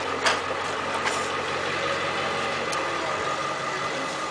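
A steady mechanical hum with a couple of light knocks in the first second or so.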